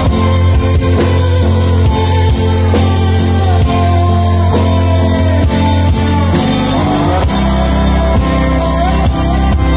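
Live rock band playing an instrumental passage: electric guitar with sliding, bending lead notes over a bass guitar and drum kit. The bass line steps down to a lower note about seven seconds in.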